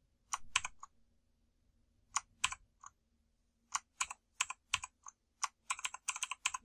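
Key presses on a Rampage Orion KB-R90 mechanical keyboard with blue clicky switches: sharp clicks in small groups with pauses between, coming in a quick run near the end.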